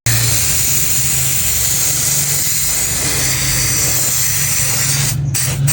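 R600 refrigerant gas rushing out under pressure through a refrigerator's opened charging valve: a loud, steady hiss that starts abruptly, with two brief breaks near the end. The strong, fast flow shows the system still held a full gas charge.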